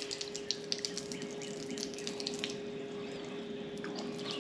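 Water spraying and splattering from the shower head of a portable propane water heater, over the unit's steady hum while it runs and heats. The splashing is busiest at first and thins out toward the end.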